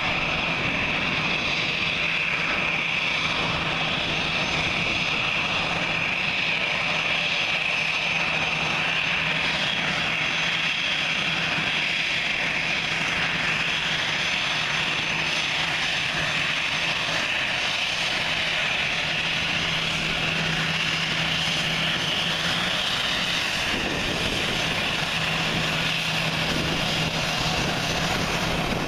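Airbus A320's twin turbofan engines running at taxi power: a steady high whine over a low hum, the whine rising a little in pitch about two-thirds of the way through.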